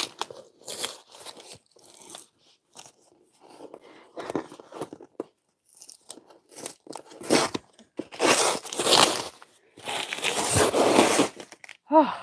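Packing tape being ripped and peeled by hand off a cardboard shipping box, in irregular tearing bursts, the longest about eight and ten seconds in. A short vocal sound near the end.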